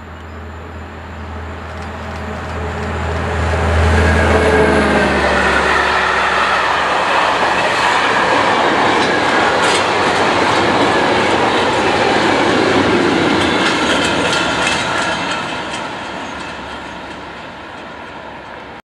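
A train passing on the line. The sound builds as it approaches, with a low hum, then becomes a steady rush of wheels on rail with repeated clicks over the rail joints. It fades away and cuts off abruptly near the end.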